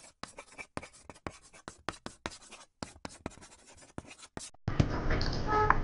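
Marker pen writing on a board: a quick run of short scratchy strokes, one after another. About four and a half seconds in, it cuts to a louder steady background hiss and rumble, with a brief pitched sound near the end.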